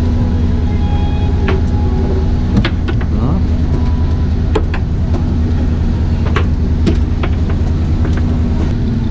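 Boat engine idling with a steady low hum, with a few sharp clicks and knocks from fishing gear handled on the fibreglass deck.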